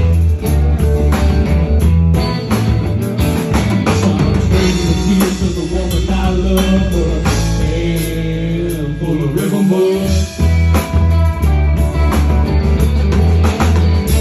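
Live rock band playing with electric bass, acoustic guitar, electric guitar and drum kit, the bass line strong under a steady beat. The bass holds a long low note about eight seconds in before the groove picks up again.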